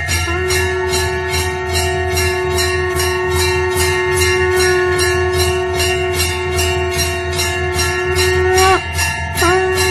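Temple bells ringing rapidly during the lamp offering, about four strokes a second, over one long held note. The note breaks briefly near the end and comes back with a slight scoop in pitch.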